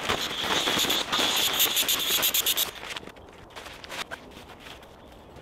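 Nylon shelter fabric rustling and crackling as it is handled and packed away, dense for about two and a half seconds, then a few light scattered clicks.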